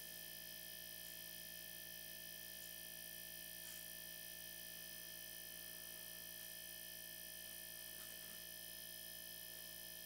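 Faint, steady electric hum of a refrigerator's hermetic compressor running, pumping air through the refrigerant lines while the open line is held shut to build pressure and blow out a blockage.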